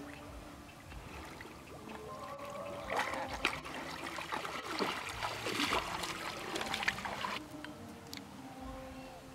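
Water splashing and sloshing around a sambar deer's legs as it wades through shallow water, loudest for about four seconds in the middle. A faint steady drone runs underneath.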